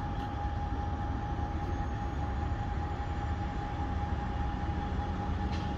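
A machine running steadily in the background: a low rumble with one constant high-pitched tone over it.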